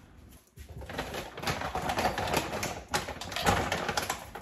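Jasmine rice grains rattling in a cooking pot: a dense run of small clicks that starts about half a second in.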